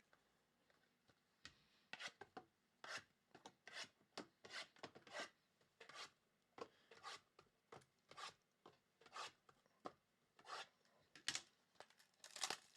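Trading cards being handled and slid past one another: a run of short, faint scrapes and swishes, about one or two a second.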